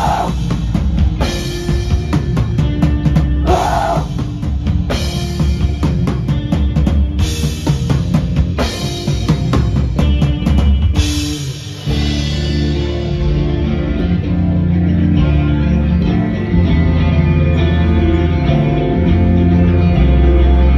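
Avant-garde black metal band playing live: pounding drum kit with cymbal crashes under distorted guitar and bass. About twelve seconds in the drums drop out, leaving held, ringing guitar and bass chords.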